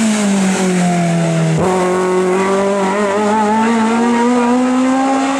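Hill climb race car engine at high revs: the revs fall for about a second and a half, then a quick gear change, then the revs climb steadily as the car accelerates.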